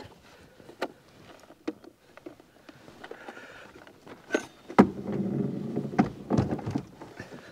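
A folding wooden field easel is handled and lowered into a canoe. A few light clicks and knocks come first. Then, from about five seconds in, a loud hollow knock is followed by knocking and scraping as it settles against the canoe hull.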